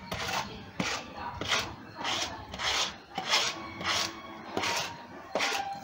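Hand-washing laundry: a scrub brush scrubbing a wet T-shirt laid on a cement floor, in rasping strokes about two a second.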